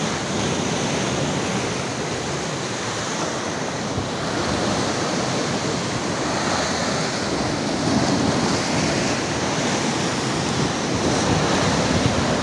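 Sea waves breaking and washing over a rocky shoreline: a steady rush of surf.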